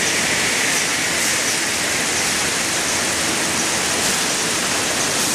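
Steady, dense din of a toilet paper converting factory floor, many machines and fans running at once as one even rushing noise with no distinct knocks or tones.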